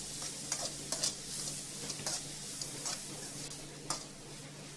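A steel spoon stirring sautéed onion and tomato in a hammered aluminium kadai, scraping and clicking against the pan at irregular moments over a soft sizzle.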